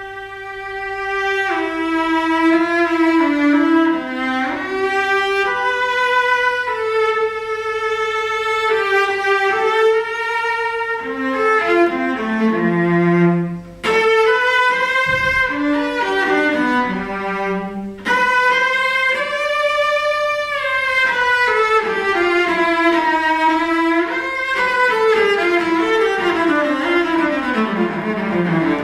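A cello built after the 1740 Montagnana model, bowed in a solo melody of sustained notes with vibrato. The melody breaks off briefly midway, and a descending run of notes comes near the end.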